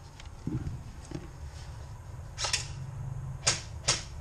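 Four sharp clicks over a low steady rumble: a quick pair about two and a half seconds in, then two more about a second later.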